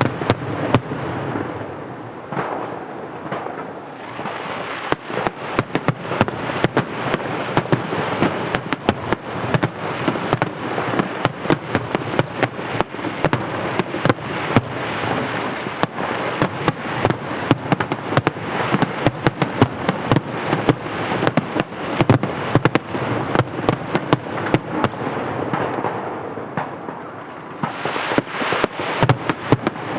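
Fireworks display in a dense barrage: a loud bang at the start, then many sharp shell reports a second with continuous crackling between them, thinning briefly near the end before building up again.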